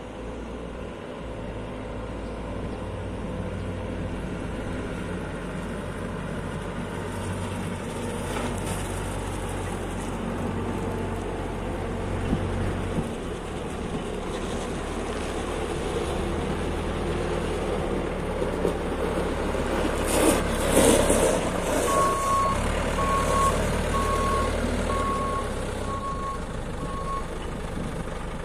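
Diesel engine of a JCB 535-95 telehandler running steadily and growing gradually louder. A loud rush of noise comes about two-thirds of the way in. Near the end the reversing alarm sounds about seven evenly spaced beeps, signalling that the machine is backing up.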